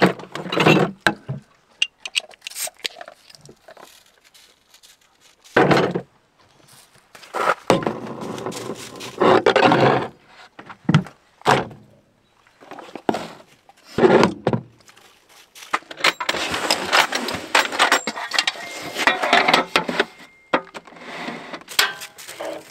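A run of separate clunks, knocks, rustles and scrapes from camp-kitchen gear being handled: a hard-sided cooler opened, food packages taken out and set down, and a portable gas grill set up on a tailgate tray.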